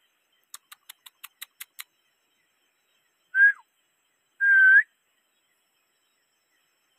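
Two loud, clear whistles at one pitch. The first is short and drops at its end. The second is longer and bends slightly upward. Both come after a quick run of eight faint, sharp clicks about half a second in.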